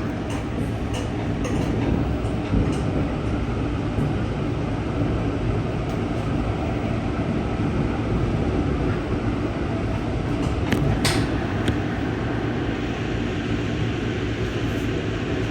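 Ride noise inside an Amtrak passenger car rolling along the track: a steady low rumble with scattered light clicks, and one short, sharp hiss about eleven seconds in.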